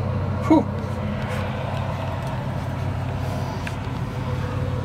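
A steady low mechanical hum, with one short, loud squeak about half a second in.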